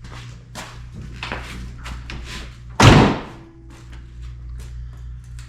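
A pickup truck door is slammed shut once, about three seconds in, the loudest sound here, among lighter knocks and clicks of parts and tools being handled over a steady low hum.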